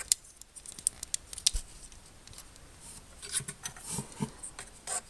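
Scattered light clicks and small rattles of plastic model-kit parts being handled and pressed together as armor pieces are fitted onto a Gunpla model.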